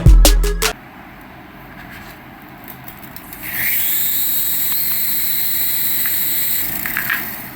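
Small electric motor of a remote-control toy spinning up with a rising whine about three and a half seconds in, then running at a steady high whine with hiss, fading away near the end.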